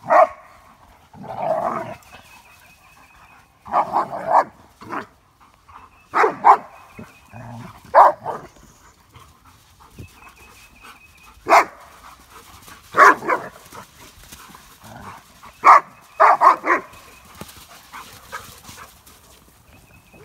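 Dogs barking in short bursts while they play-fight, a Doberman and Dogo Argentinos wrestling and chasing. The barks come singly and in quick clusters of two or three every second or two.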